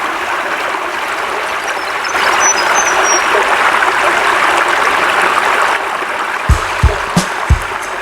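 Steady rushing of flowing water, with a few short high chirps about two to three seconds in. Near the end, music comes in with a beat of kick-drum thumps.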